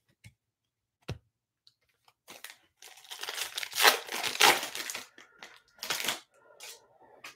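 Foil wrapper of a 2021 Bowman Chrome hobby pack being crinkled and torn open by hand, loudest in the middle, after a single short knock about a second in.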